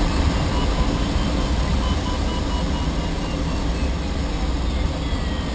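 Steady wind noise of air streaming over the canopy and fuselage, heard inside the closed cockpit of a DG-1000 glider in flight. It is a low, even rumbling hiss that eases off slightly near the end.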